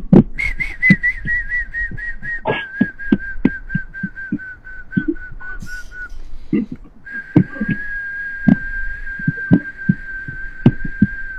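A long, high whistle held in two stretches, wavering slightly at first and then steady, with a break about six seconds in. Under it are light, irregular thumps of a palm tapping on the chest.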